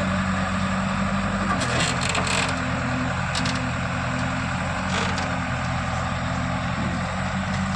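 JCB 3DX backhoe loader's diesel engine running steadily under work, its pitch shifting slightly about a second and a half in. Several sharp clanks are heard over it, a cluster around two seconds in and single ones later.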